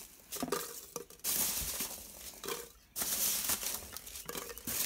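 Styrofoam packing peanuts rustling in a cardboard box as a hand scoops them out, in irregular bursts with a brief lull about three seconds in.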